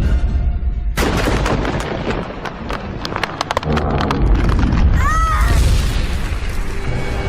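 Cartoon sound effects of a huge creature crashing through: a sudden loud crash about a second in, a run of smashing impacts and booms, then a shrill rising-and-falling shriek about five seconds in, under dramatic music.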